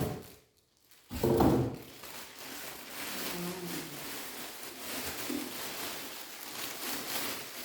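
Rustling and handling of sewing-machine packaging, with a brief loud vocal sound about a second in.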